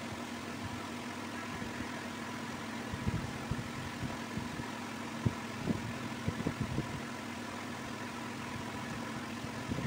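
Steady mechanical hum with a few soft, low thumps clustered from about three to seven seconds in.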